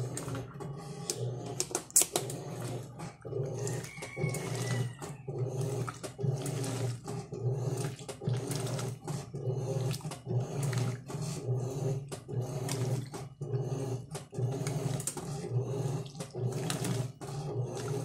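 Electrolux LM08 8 kg top-loading washing machine agitating on its turbo setting: the motor hums and the agitator churns water and clothes in a steady rhythmic back-and-forth, about two strokes a second. A sharp click about two seconds in.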